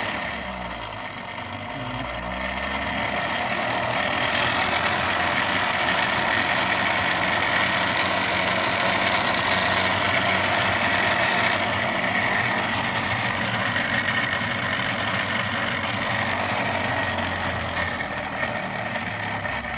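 3D-printed magnetically levitated pulse-motor rotor spinning and making a loud, steady racket. It grows louder over the first few seconds, then holds steady. The builder traces the noise to the rotor's 304 stainless-steel shaft point pressing against the aluminium backing plate.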